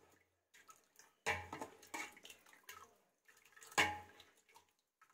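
A hand and a steel ladle working boiled black chickpeas in their cooking liquid in a pressure cooker: wet splashing and dripping with a few sharp knocks, the loudest about a second in and again near four seconds in.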